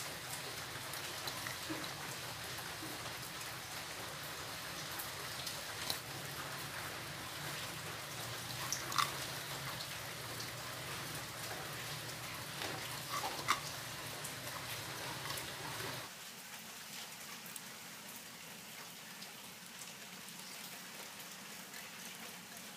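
Beaten egg sizzling in a nonstick frying pan, a steady rain-like crackle with a few sharper pops. About sixteen seconds in, a low hum underneath drops away and the sizzle turns quieter.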